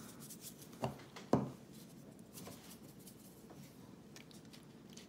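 Two light knocks about a second in, then faint rubbing and scraping of hands handling a plastic pepper shaker that is new and still sealed.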